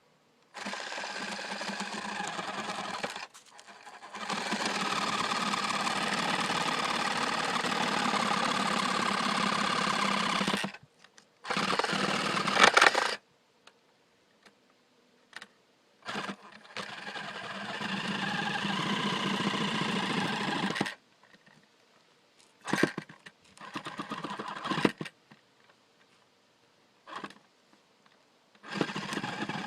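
Handheld power saw run in several bursts of a few seconds each, with short stops between, cutting into the rotted wooden skirt board.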